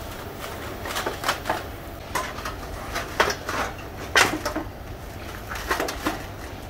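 Green woven plastic sack rustling and crackling in short bursts as it is pulled up around a stack of moulded plastic seat bases and bunched closed, with a few sharp clattering knocks, over a low steady machine hum.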